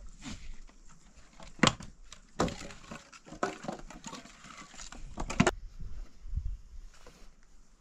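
Split wooden planks and firewood knocking and clattering against each other as they are picked up and stacked. There are sharp clacks near two seconds in, a cluster of them in the middle, and a last burst just after five seconds, when it cuts off suddenly.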